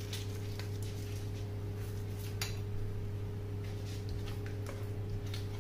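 Thick cream sauce simmering in a non-stick frying pan, with scattered soft pops and clicks, one sharper about halfway through, over a steady low hum.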